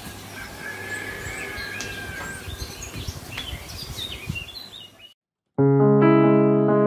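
Birds chirping and whistling over a low steady hum. About five seconds in there is a short cut to silence, then louder electric piano music starts, playing held chords.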